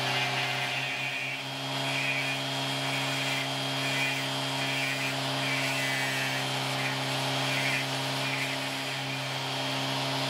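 Dremel-type rotary tool running at a steady speed, its diamond burr grinding Welsh slate under a trickle of cooling water. Over the motor's even hum, the scratchy grinding comes and goes in short spells as the burr is pressed to the stone and eased off.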